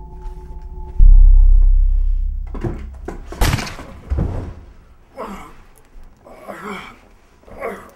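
Film soundtrack: a sustained music drone cuts off about a second in to a sudden, very loud deep boom that fades over a couple of seconds. A few heavy thuds follow, then short separate sounds repeated every half second or so.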